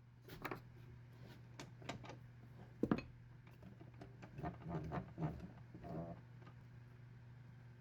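Light clicks and knocks of objects being handled, with one sharper knock about three seconds in and a run of small knocks a little later, over a steady low hum.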